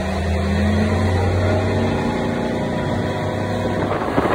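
Motorboat engine running with a steady, even drone. Near the end it gives way to wind buffeting the microphone.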